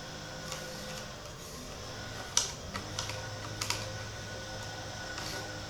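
A few light, irregular clicks and taps, the sharpest about two and a half seconds in, over a steady low hum.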